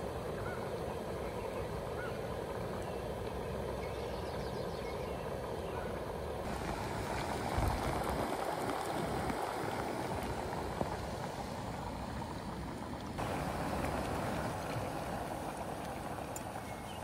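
Jetboil MiniMo backpacking stove's gas burner running steadily under its pot, a constant rushing noise as the water heats toward a boil. There is a single low thump about halfway through.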